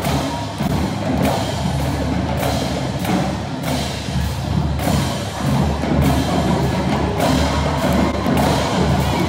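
High school marching drumline, with snare drums and Pearl bass drums, playing a loud rhythmic percussion cadence made of repeated sharp stick hits over deep bass-drum beats.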